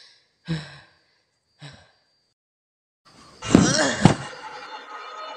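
Two short, breathy gasps from a frightened hiding boy, fading, then a pause. About three and a half seconds in, a sudden loud horror jump-scare sting with a sliding, scream-like pitch and two hard hits, leaving a steady high ringing.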